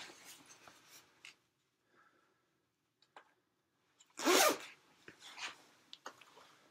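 A person's breath: short puffs of breathing, and one loud burst of breath about four seconds in.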